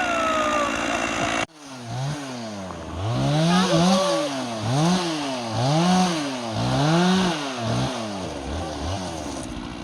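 Two-stroke Stihl chainsaw with a 36-inch bar being revved up and down over and over, its engine pitch rising and falling about once a second. It follows a steadier running sound that cuts off abruptly at the start.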